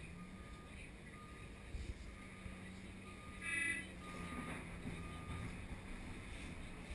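Komatsu PC2000 hydraulic excavator running steadily, heard inside the operator's cab, with a warning alarm beeping about once a second. A brief, louder, higher-pitched tone sounds about three and a half seconds in.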